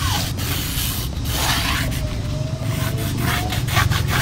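Pencil point scraping across plywood as a circle is traced with a stick-and-pencil compass, in uneven strokes over a steady low rumble, with a few light ticks near the end.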